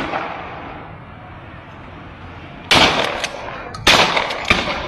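Shots from police pellet guns: one at the start, then two loud ones about a second apart with smaller cracks between them. Each shot rings out with a trailing echo.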